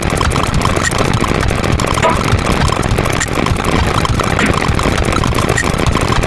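Dense jumble of overlapping sound effects: a rapid, unbroken stream of clicks over a steady low rumble.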